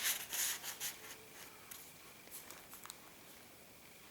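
Paper rustling and rubbing as handmade journal pages and a paper tag are handled. It is loudest in about the first second and a half, then fades to faint occasional rustles.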